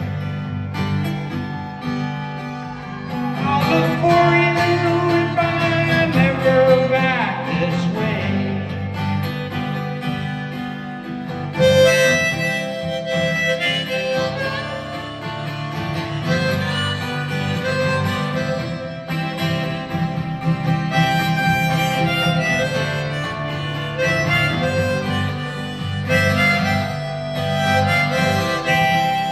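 Instrumental break of harmonica melody over strummed acoustic guitar, played live.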